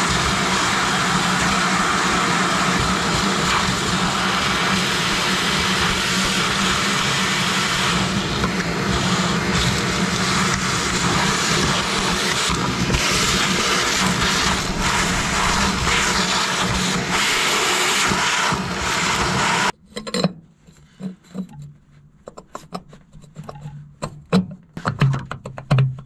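Shop vacuum running steadily while its nozzle sucks up dirt around a bulldozer's winch pump mount, then switched off suddenly about twenty seconds in. After that come scattered light knocks and clinks of metal parts being handled and fitted.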